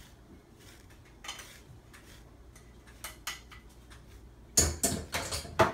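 Light knocks and clatters of hard furniture being handled by a toddler at a TV-stand cabinet drawer and a plastic step stool: a few scattered taps, then a louder quick run of knocks near the end.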